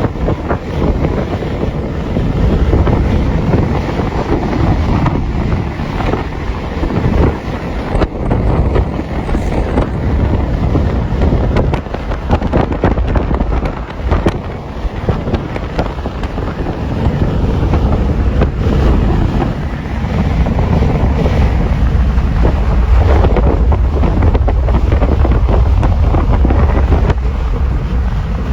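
Freight train rolling past, a steady low rumble of wheels on rails that grows louder in the last third, with wind buffeting the microphone.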